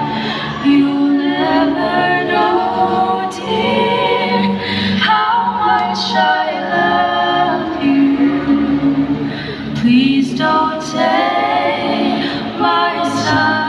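Women's voices singing a slow song together in close harmony, holding long notes, live through a concert PA.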